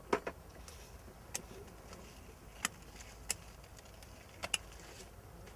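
About seven sharp, short clicks at uneven intervals, two of them in quick pairs, over a faint steady background.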